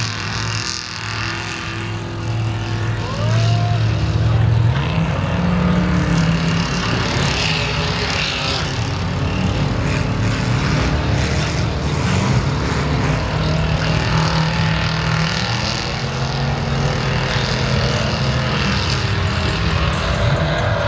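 A mud truck's engine revving hard and held at high rpm as its tires spin through deep mud, the pitch stepping up about four seconds in and shifting again later. Mud and tire spray hiss under it.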